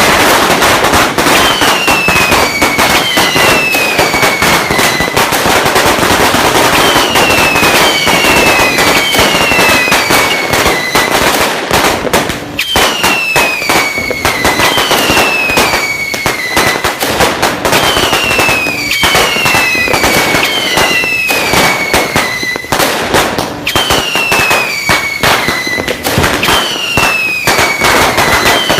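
Sinturon ni Hudas, a long belt of small firecrackers, going off in a dense, continuous run of rapid cracks, with falling whistles recurring every second or two over the crackle.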